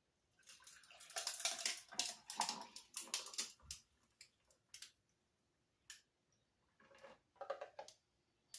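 Water sloshing and splashing for about three seconds, then a few scattered clicks and knocks and short splashes.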